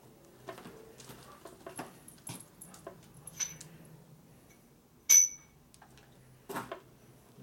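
A dog whimpering, with a short, sharp high-pitched cry about five seconds in.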